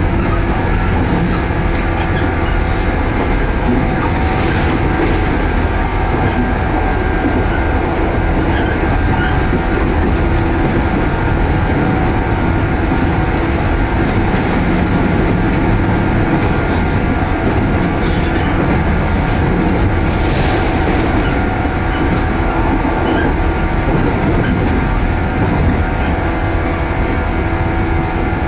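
Steady running noise of a JR Sanyo Line train, heard from inside the carriage while under way: an even rumble of wheels on rail with a constant hum.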